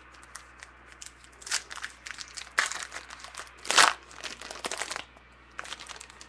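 Wrapper of a trading card pack being torn open and crinkled in the hands: a run of irregular crackles, loudest twice, about two and a half and almost four seconds in.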